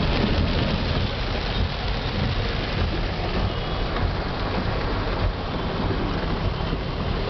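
Steady low rumble and hiss of a car driving in flood conditions.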